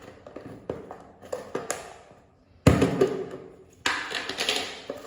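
A Cressi Nano dive mask and its plastic case being handled. There are light taps and clicks, a sharp knock about two and a half seconds in, then another knock followed by a scraping noise.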